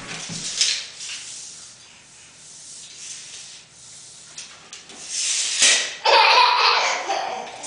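Steel tape measure blade being pulled out and zipping back into its case, with a baby's laughter. The loudest stretch comes in the last few seconds.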